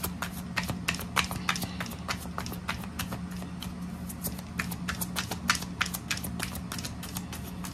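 A deck of tarot cards being shuffled by hand, overhand, with the cards sliding and clicking against each other in an irregular run of sharp clicks, several a second.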